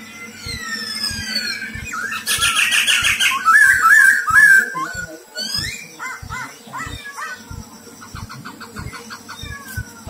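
Caged black-throated laughingthrush singing a varied song: whistled glides, a fast trill, loud warbled phrases about three to four seconds in, and near the end a quick run of clicking notes. Faint low thumps tick along underneath at about two to three a second.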